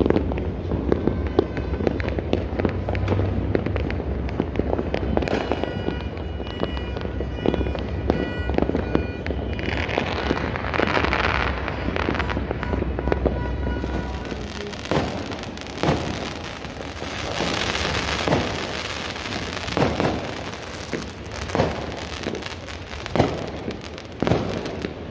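Many fireworks and firecrackers going off at once, a dense rattle of pops and bangs. In the second half a thick crackling joins in, with several loud single bangs, the last from an aerial shell bursting close overhead near the end.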